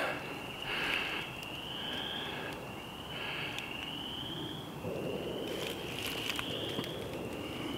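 An animal calling outdoors: about five high calls, each roughly a second long and rising slightly in pitch, repeated every second or so. Faint rustling and a few soft clicks sit under them.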